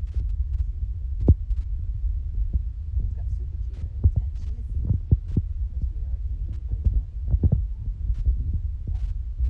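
Low steady rumble with scattered small clicks and taps as a baby-food squeeze pouch is held to a toddler's mouth and he sucks and mouths at it.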